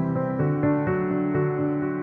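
Background music: a soft instrumental with held notes that change pitch every half second or so.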